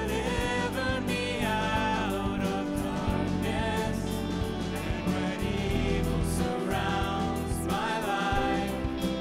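A worship band playing a contemporary Christian song live: a woman singing the lead over electric guitar and piano, with bass and a steady beat.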